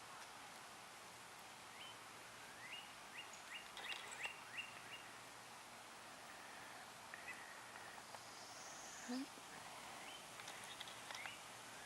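A distant songbird singing runs of quick rising whistled notes, five or six in a row, twice, over faint outdoor background noise.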